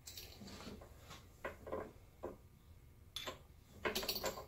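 Light clicks and knocks of steel parts being handled and shifted on a press bed while a lathe tumbler gear is repositioned to press out its bushing. A handful of separate taps, with a closer cluster near the end.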